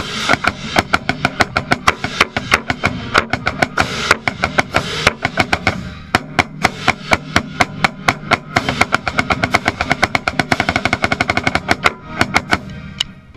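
Marching band playing, with a snare drum close and loudest, striking a dense, rapid stream of accented strokes over sustained band tones. The music cuts off abruptly near the end.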